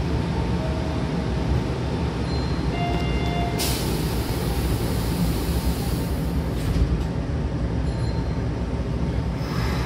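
Commuter train doors closing: a short electronic door chime sounds, then a hiss for about three seconds as the doors slide shut, ending in a thump as they meet. Beneath it is the steady hum of the stopped train.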